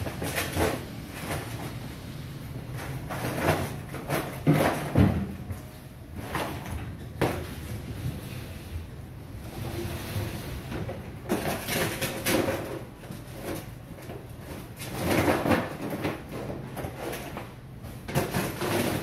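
Irregular knocks, thuds and clatter of butchers at work: cubed pork being handled on a long cutting table and a plastic scoop knocking in a large plastic bin.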